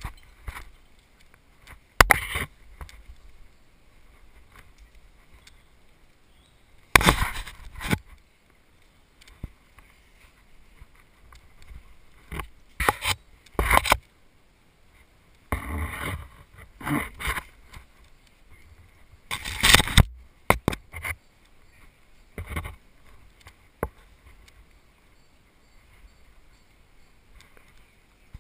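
Irregular bursts of close rustling and scraping as a climber's action camera rubs and knocks against rock, clothing and gear, with quieter gaps between.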